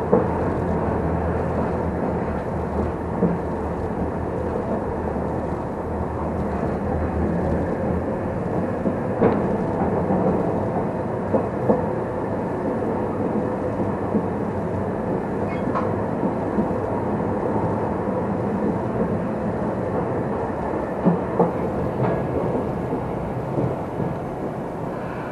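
Fukui Railway Fukubu Line tram running, heard from inside the car: a steady rumble of motors and wheels on the rails, with a few short sharp clicks.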